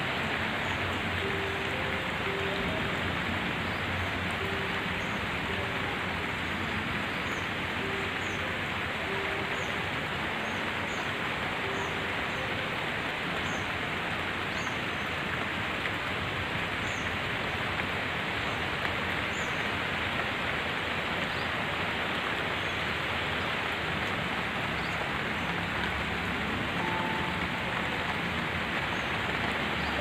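Steady rain falling on the leaves and ground of a park: an even hiss with no breaks, with faint high chirps now and then.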